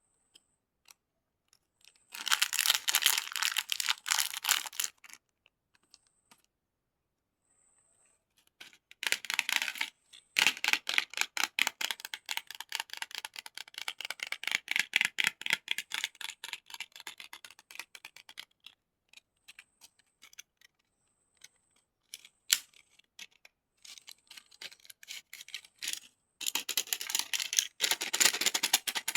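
Candies being handled: bursts of rapid, dense clicking and crinkling several seconds long, separated by quiet pauses.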